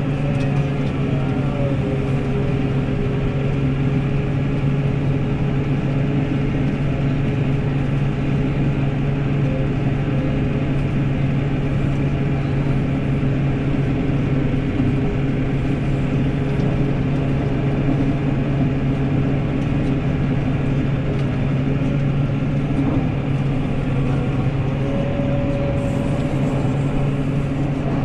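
New Holland tractor's diesel engine running steadily at a constant pitch while pushing a front snowplough through snow.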